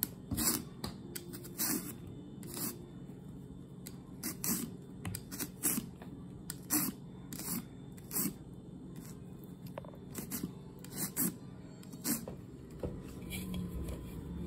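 Repeated short scrapes of a handheld vegetable peeler drawn across an eggplant, stripping off the skin, roughly one to two strokes a second with uneven gaps. The strokes stop about 12 seconds in.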